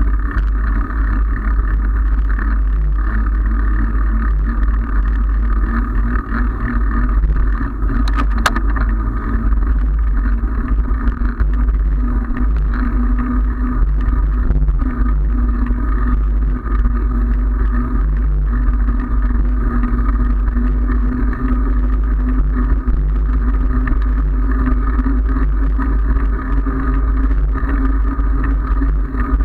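Steady wind buffeting and road-tyre noise on a handlebar-mounted camera's microphone while riding a bicycle on asphalt, with one sharp click about eight seconds in.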